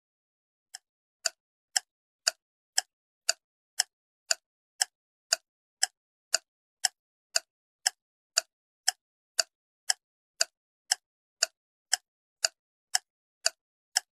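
A clock-like ticking sound effect, about two sharp ticks a second and evenly spaced, starting about a second in. It is a countdown timer for guessing the picture puzzle.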